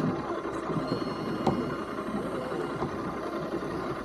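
Jet boat's outboard motor running steadily at low revs, with one sharp click about a second and a half in.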